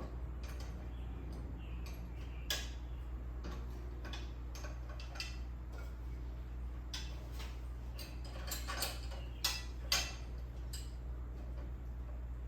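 Irregular metal clicks and knocks from a miter saw stand's mounting brackets being lifted, slid and readjusted, with a cluster of louder knocks near the end, over a steady low hum.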